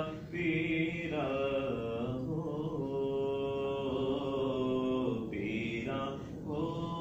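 A man's voice chanting a devotional recitation in long held notes, pausing briefly twice between phrases.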